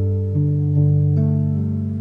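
Soft instrumental relaxation music: gently plucked notes over a sustained low bass note, with new notes entering about every half second.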